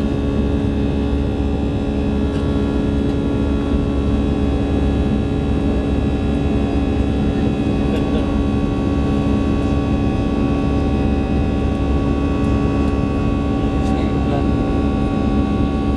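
Airliner cabin noise in the climb after takeoff: the steady rush and drone of an Airbus A320's jet engines, with several steady whining tones over it.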